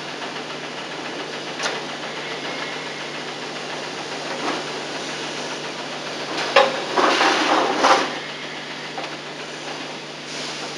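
BMW E31 seat mechanism being worked during a functional check of the backrest: a click, then about a second and a half of mechanical whirring and rattling about six and a half seconds in. Underneath runs a steady hiss and hum from the old VHS tape.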